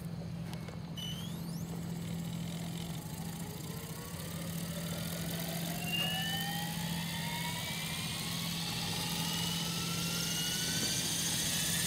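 Radio-controlled helicopter spooling up on the ground: a whine from its motor and rotor that climbs slowly and steadily in pitch as the rotor gathers speed.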